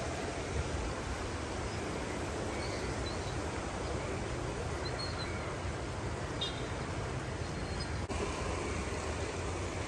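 Steady rush of a flood-swollen river in spate, with a few faint high chirps over it.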